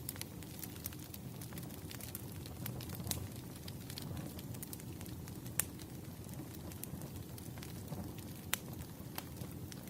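Campfire burning: a steady low rumble of the flames with scattered sharp crackles and pops of the wood, two of them louder, about five and a half and eight and a half seconds in.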